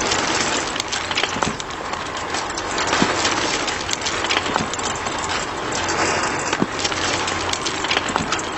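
Steady mechanical running noise with a low hum and irregular crackling and clicking, typical of a small motor-driven model tractor working.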